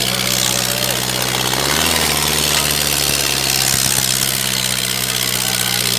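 Sonalika DI 750 III Sikander tractor's diesel engine running steadily under heavy load as it drags a sack-weighted disc harrow through sandy soil. Its pitch shifts once, about two seconds in.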